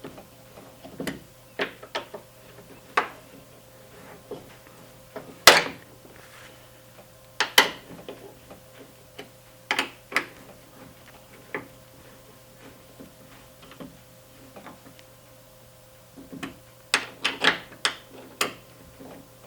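Irregular clicks and knocks of a hand tool working on screws and metal door hardware while the door lock actuator's screws are tightened, with a quick run of several clicks near the end.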